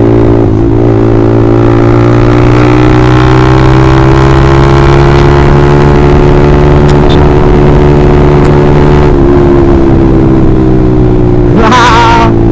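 Honda CBR150R single-cylinder engine running through a loud aftermarket racing exhaust while riding, its note holding steady with a slow rise and fall in pitch. The engine note dips briefly about half a second in and again about nine seconds in, as with a throttle change or gear shift.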